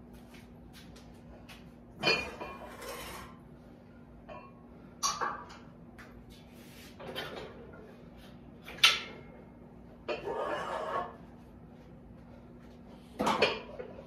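Metal home-gym equipment being handled: about six separate clanks and rattles of steel parts, the sharpest about nine seconds in, over a faint steady hum.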